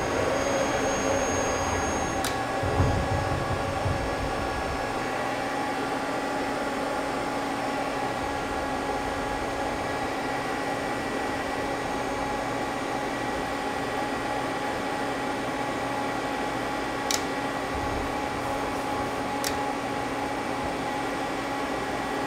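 Steady fan and electrical hum of an idle Mazak CNC lathe, with several steady tones in it. A few sharp clicks, about two seconds in and twice near the end, are keys being pressed on the control panel.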